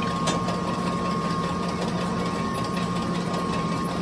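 Rubber hose extruder running steadily as it pushes out black rubber hose: a constant machine hum with a steady high whine over it, and a sharp click about a third of a second in.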